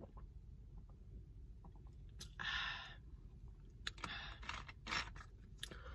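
Plastic bottle of sparkling water being handled after a drink. A short breathy hiss comes about two seconds in, then a run of faint clicks and crinkles as the bottle and its cap are handled.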